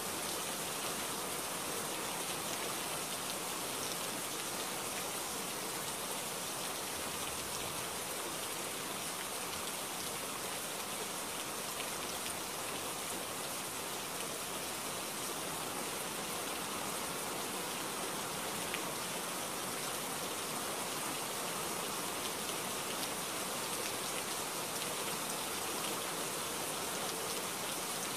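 Steady heavy rain falling and pattering on a surface, with a few sharper drop ticks now and then.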